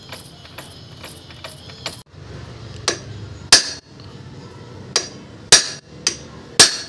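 Hammer striking a steel punch held against a Yamaha Sniper 150's clutch housing, driving out the rivets of the worn clutch damper: six sharp metallic blows in pairs from about three seconds in. A light regular ticking comes before the blows.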